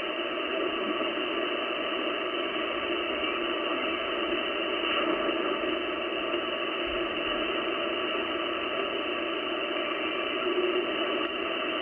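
Steady hiss of band noise from an Icom IC-756PRO HF transceiver's speaker as it is tuned up through the 10-metre SSB band, with no readable station coming through.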